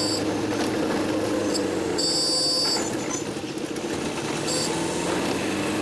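Taxi engine and road noise heard from inside the cab while driving, a steady hum, with several short high-pitched tones from the traffic, the longest about two seconds in.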